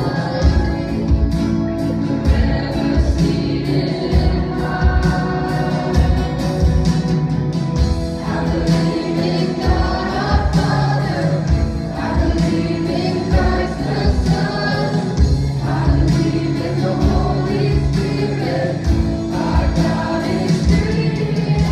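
Live worship band playing a song: singers over guitars and a drum kit keeping a steady beat.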